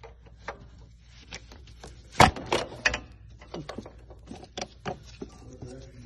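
A wrench clicking and knocking against metal while fitted to the 19 mm hard-line fuel fitting on a high pressure fuel pump: a run of irregular sharp clicks, with a loud clank about two seconds in followed by a few more knocks.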